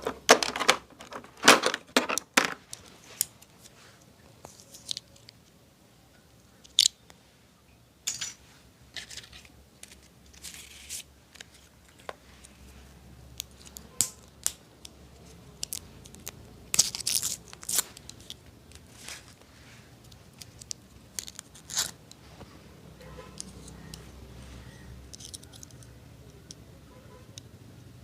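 Barber's cutting tools working on hair: a run of short, crisp snips and scrapes in irregular clusters, densest in the first couple of seconds and again about two-thirds of the way through.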